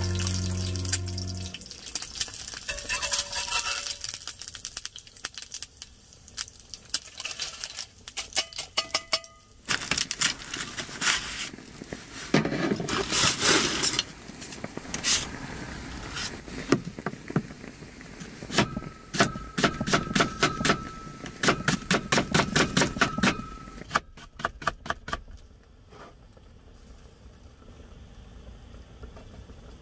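Cooking sounds: scattered clicks and clatter of utensils and cookware, then a quick run of knife strokes chopping green onions on a cutting board.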